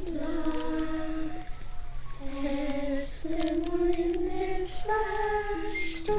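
Voices singing a slow wordless melody in long held notes, at times in two parts.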